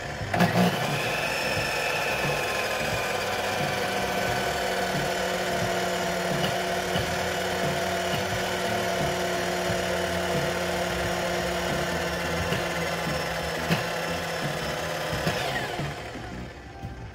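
Compound miter saw's electric motor running on a triac lighting dimmer as the dimmer is turned down. Its whine slowly sinks in pitch, with a few sharp clicks, and near the end it winds down quickly. Slowed this way, the motor surges erratically and kicks around, because a triac dimmer cannot run it smoothly at low speed.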